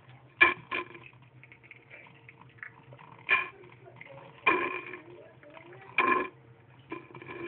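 A person blowing and voicing short trumpeting blasts through a cardboard tube held to the mouth, imitating an elephant: about half a dozen short honks with pauses between, the one about halfway through the longest.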